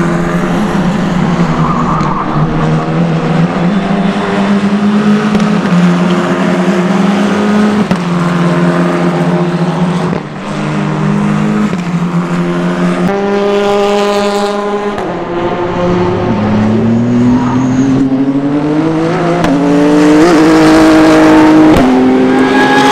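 Formula 4 single-seater race car engines running at speed, the engine note stepping up and down with gear changes. Later a car accelerates hard, its pitch climbing and dropping back at each of several upshifts.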